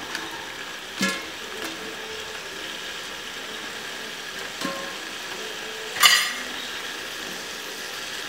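Beef shank, tomatoes and onions sizzling in a metal pot as they are stirred, with a spoon knocking on the pot about a second in and a louder metallic clink about six seconds in.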